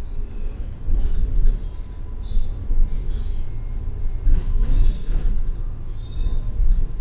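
Double-decker bus driving, heard from inside: a steady low engine and road rumble, with short bursts of higher clatter, loudest about a second in and again around the middle.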